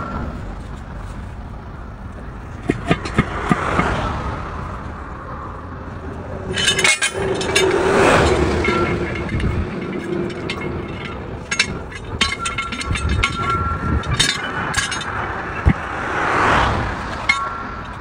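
A steel tire iron clinks and scrapes against a steel truck wheel rim in short clusters as the tire bead is levered. Vehicles pass on the road in about three swells that rise and fade, the loudest about eight seconds in.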